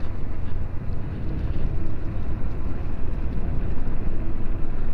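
Tires of a LiveWire S2 Del Mar electric motorcycle rolling slowly over gravel and wet leaves, crunching and rustling, over a steady low rumble; the electric motor itself adds almost no sound.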